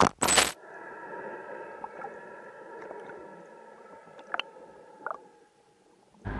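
Underwater sound picked up by a spearfisher's camera: a short loud rush in the first half second, then a steady hum of several high tones over a low wash of water noise, with a few scattered clicks, fading out shortly before the end.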